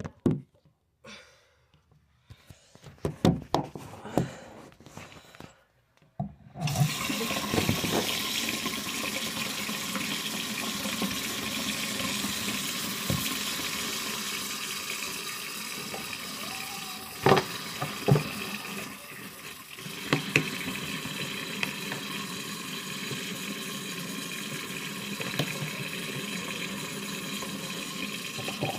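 Bathroom sink tap turned on about six seconds in and running steadily into the basin, after a few knocks and bumps. Two sharp knocks come a little past the middle.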